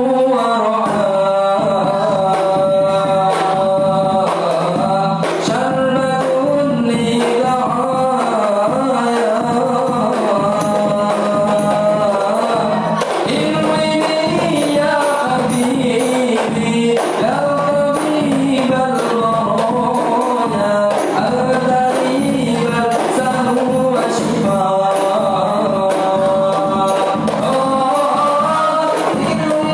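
Rebana frame drums beating a steady rhythm under group singing, a sung melody carried continuously over the drumming.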